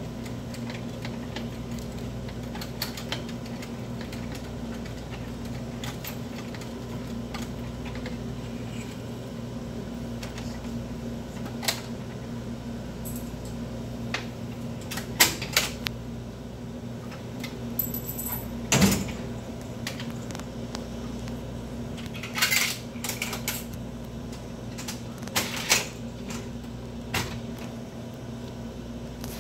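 Scattered metallic clicks, rattles and clatters from hands working at an open vending machine's coin mechanism, with sharper knocks in the second half. Under them runs a steady low electrical hum.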